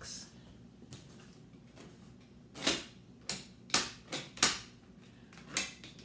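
Box cutter cutting at the packing tape on a cardboard box: about six short, sharp scratchy clicks, starting about halfway through.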